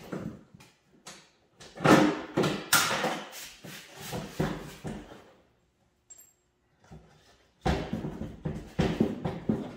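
Snowmobile rear suspension skid clattering and clunking against the track and chassis as it is lifted and wiggled to work a loose mounting bolt free, in two bouts with a pause between.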